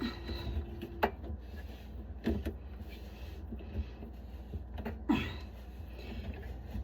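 Hands working on under-sink plumbing: a few sharp knocks and clicks, the loudest about a second in, just past two seconds and around five seconds, over a low rumble of handling noise. A faint steady hum stops about a second in.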